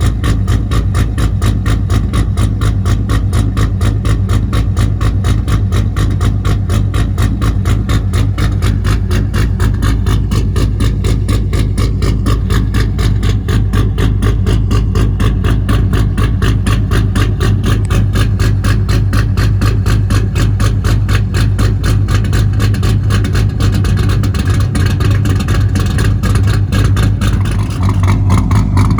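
LS V8 in a Chevrolet S10 idling steadily through newly fitted exhaust headers, a low, even exhaust note with a rapid regular firing pulse.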